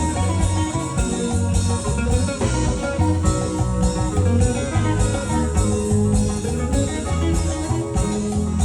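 Dance music with a lead guitar over a heavy bass line and a steady beat, an instrumental passage without singing.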